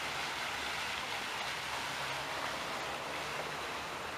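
Garden fountain splashing steadily, an even rushing hiss of falling water.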